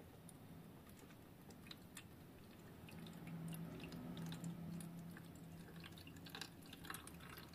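A thin stream of water trickling faintly into the plastic water tank of a Huina 1561 RC fire truck, with small scattered drips; a faint low hum joins for a couple of seconds midway.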